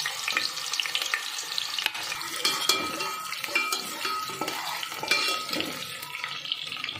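Sliced onions and cardamom sizzling and crackling in hot oil in a steel pressure cooker, stirred with a slotted steel spatula that scrapes and clinks against the pot now and then.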